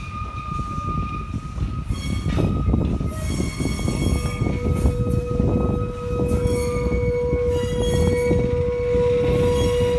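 Wooden passenger coaches rolling slowly over curved track, wheels clicking over rail joints while the wheel flanges squeal in steady high tones; a lower squeal tone joins about four seconds in.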